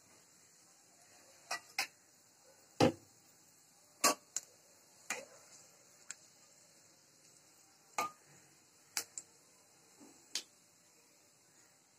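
Whole cumin seeds frying in hot oil with bay leaves and a dried red chilli in an aluminium kadai, giving about a dozen scattered sharp pops and ticks, the loudest about three seconds in. In the second half a spatula stirs them against the pan.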